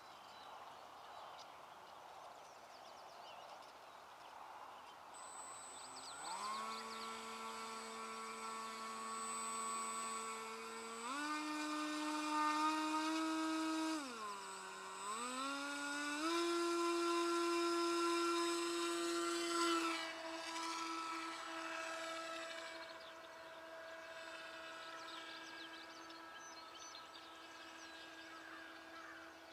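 Brushless electric motor and pusher propeller of a Finwing Penguin RC plane whining as it is throttled up about six seconds in. The pitch steps up twice, with a brief dip and recovery in between. About twenty seconds in it drops to a lower, fainter steady whine as the plane is hand-launched and flies off.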